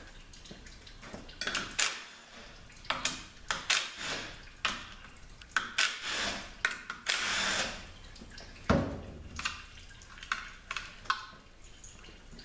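Metal tools working on a disassembled automatic transmission's oil filter and its bolts: a run of sharp metallic clicks and knocks, with two longer scraping or whirring bursts about six and seven seconds in.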